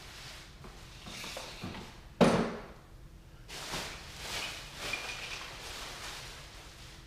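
Objects being handled and shifted, with rustling and light knocks and one sharp thump about two seconds in, which is the loudest sound.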